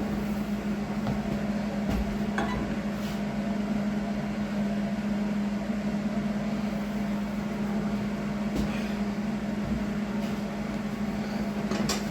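Welding machine running with a steady electrical hum.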